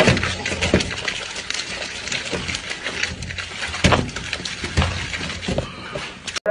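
A peeled watermelon being bitten, crushed and torn apart at speed by mouth and hands: wet squelching, slurping and splattering, with pulp and juice spattering onto a metal tray. A few sharper wet smacks stand out, at the start and around four seconds in.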